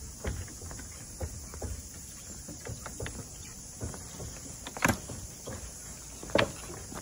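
Footsteps on the wooden plank deck of a suspension bridge: irregular knocks and thuds, two of them clearly louder in the second half, over a steady hiss.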